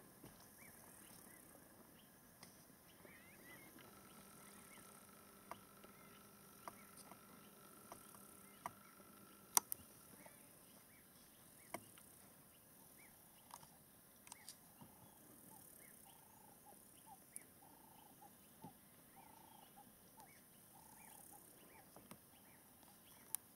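Faint bushveld ambience: scattered short bird chirps and calls, a high insect hiss, and now and then a sharp click. A faint steady hum runs from about four to ten seconds in.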